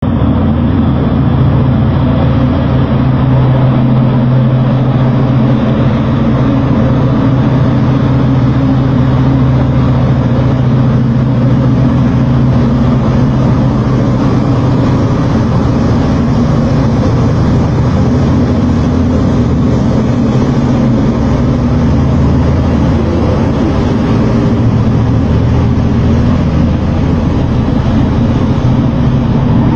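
Cat 794 AC electric-drive mining haul truck running, a loud steady low engine drone with a strong hum. The low tone changes about 22 seconds in.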